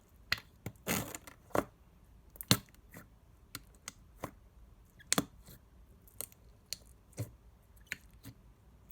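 Slime being squished and stretched by hand, giving irregular wet clicks and pops: the slime's "sloshy sound", with two louder pops about two and a half and five seconds in.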